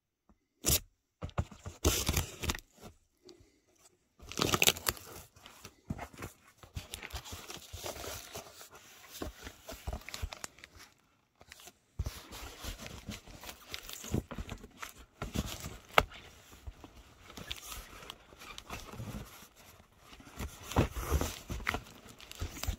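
Battered cardboard shipping box being handled and opened: irregular bursts of packing tape tearing and cardboard crinkling and scraping, with an occasional sharp knock.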